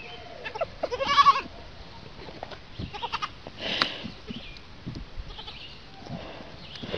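Young goat kids bleating: one loud, wavering bleat about a second in, followed by a few shorter, fainter calls and soft clicks.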